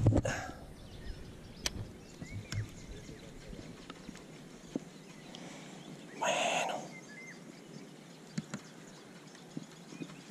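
Quiet open-air background with a few faint bird chirps and small scattered clicks, plus a brief rushing noise about six seconds in.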